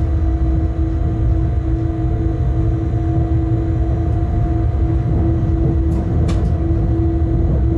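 Bombardier Traxx class 186 electric locomotive running at speed, heard from inside its cab: a steady low rumble of wheels on track under a constant electric hum from the traction drive, with a couple of faint high clicks about six seconds in.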